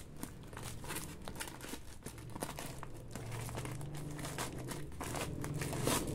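Plastic courier mailer crinkling and crackling irregularly as it is pulled and torn off a cardboard-wrapped box, with a sharper crackle near the end.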